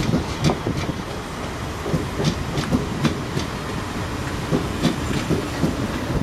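South West Trains electric multiple unit running past, its wheels clacking irregularly over the rail joints over a steady low rumble.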